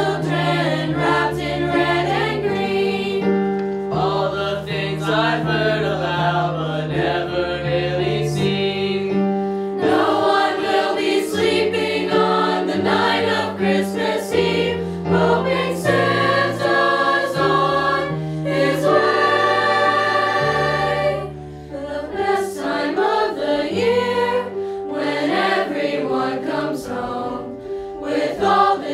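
High school choir singing a Christmas song in harmony, over sustained low accompaniment notes that change every second or two.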